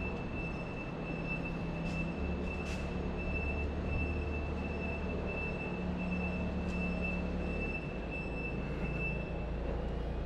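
Machinery running steadily: a low hum with a constant high-pitched whine over it. The whine stops shortly before the end.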